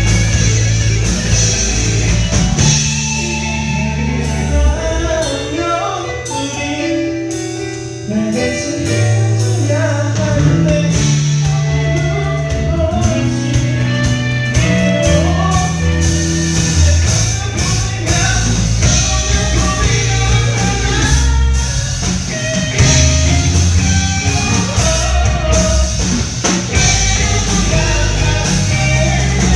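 Live rock band with drum kit, bass, electric guitar and keyboard playing a pop-rock song with a singer. The playing thins out a few seconds in and the full band comes back in about eight seconds in.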